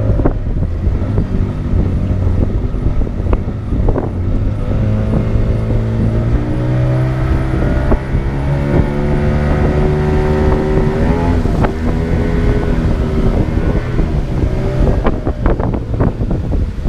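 Small boat's motor running under way, its pitch climbing a little about five seconds in and easing back down around twelve seconds, with wind buffeting the microphone and occasional knocks of water against the hull.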